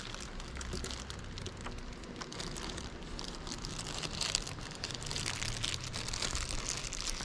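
Thin plastic carrier bag rustling and crinkling as it is carried, with many small crackles.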